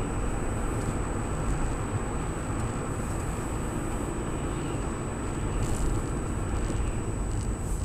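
Car driving, heard from inside the cabin: steady road and engine noise with a constant thin high-pitched tone above it.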